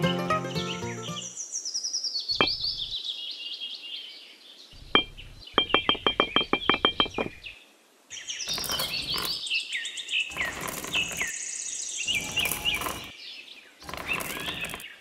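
Birds chirping over a short plucked-string tune that stops about a second in. A quick run of sharp clicks comes in the middle, and in the second half there are several second-long bursts of rattling as small pebbles are dropped around a miniature hand pump.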